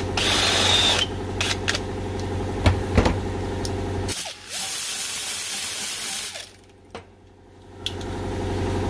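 A cordless drill with a step bit cutting a hole in a thin aluminium lid, then a pneumatic right-angle die grinder with an abrasive disc hissing as it deburrs the hole, from about four and a half to six and a half seconds in. A steady mechanical hum runs under the drilling and returns near the end, with a couple of sharp clicks about three seconds in.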